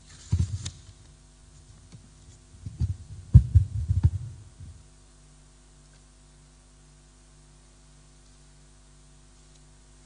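Dull thumps of a handheld microphone being handled and set down on a wooden lectern: a few knocks about half a second in and a louder group around three to four seconds in. After that only a low steady hum remains.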